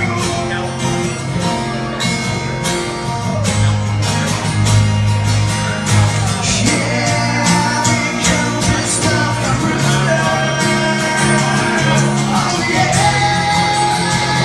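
Live music led by guitar: a steady strummed rhythm under a sliding melody line, an instrumental stretch between sung lines.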